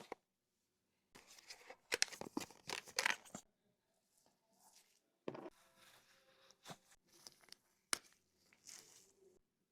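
Bursts of rustling and crinkling handling noise, followed by a few sharp clicks.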